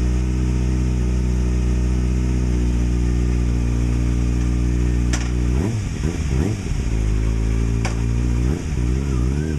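Kawasaki Ninja ZX6R's inline-four engine with a slip-on exhaust idling steadily, then revved in short blips about six seconds in and again near the end. Two sharp clicks come just before the revving.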